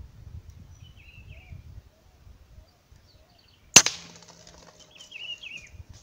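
A single sharp shot from a hunting rifle a little under four seconds in, with a short ringing tail. Small birds chirp faintly before and after it.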